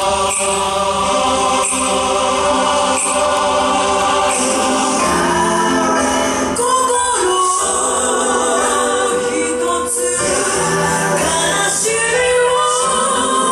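Wind band music with a chorus of voices singing together over sustained chords.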